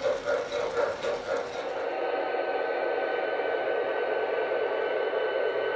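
Model train cars rolling past on three-rail O-gauge track, a rhythmic wheel clatter of about two and a half beats a second as the caboose goes by. About two seconds in it gives way abruptly to a steady hum with a thin high tone.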